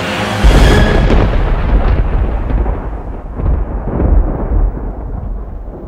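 A trailer sound effect: a sudden deep boom about half a second in, followed by a low rumble that slowly dies away, its high end fading first.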